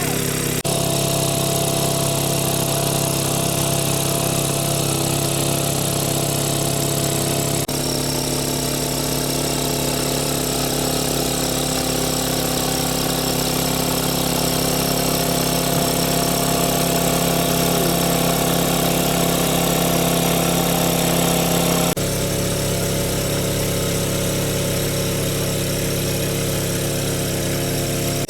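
Engine-driven water pump running steadily while sucking water out of a pond. Its note shifts abruptly a few times.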